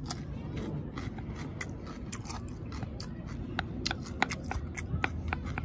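A person chewing crunchy raw salad vegetables close to the microphone: irregular crisp crunches several times a second, coming thicker in the second half.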